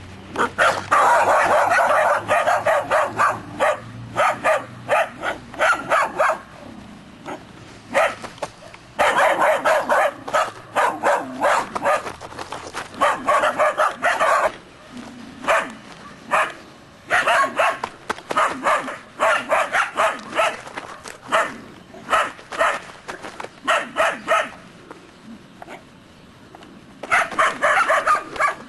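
Several three-month-old Groenendael Belgian Shepherd puppies barking in rapid, sharp volleys with short pauses between them: a guarding reaction to an unfamiliar person.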